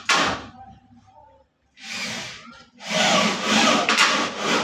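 Power drill driving screws down into melamine-faced particleboard in separate bursts: a short one at the start, a weaker one about two seconds in, and a longer, louder run in the last second and a half.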